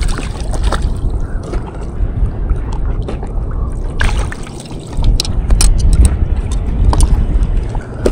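Water sloshing and splashing around a paddleboard, starting with a fish splashing in a landing net at the board's side, under a heavy low wind rumble on the microphone. Several sharp clicks and knocks of gear being handled come in the second half.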